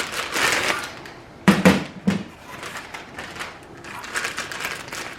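Handling noises from the air cut-off tool and its parts: rustling and light clicks, with two sharper knocks about one and a half and two seconds in.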